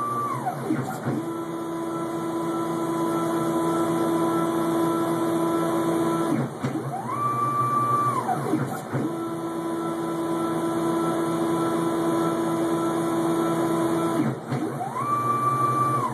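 Stepper motors of a homemade CNC machine driving a digitizing probe over a part. A steady whine holds for about five seconds at a time. It is broken twice by a short, quicker move whose pitch rises, holds and falls again, typical of motors accelerating into a fast traverse and slowing out of it.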